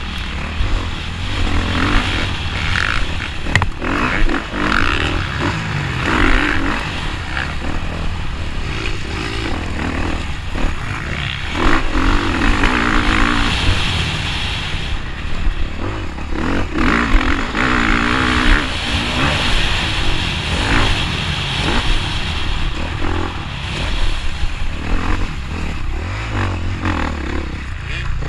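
Dirt bike engine heard from on board while ridden hard over a rough track, revving up and down with the throttle, with rattles and scrapes from the rough ground.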